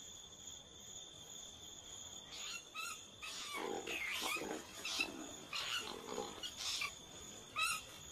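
Koalas calling: a run of short, harsh cries that bend up and down in pitch, starting a couple of seconds in and ending shortly before the end. A steady high insect trill runs behind them.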